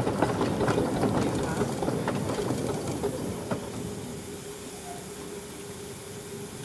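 Small steam locomotive rolling slowly over the track, its running gear clanking and rattling, fading as it moves away. A faint steady hum is heard from about halfway through.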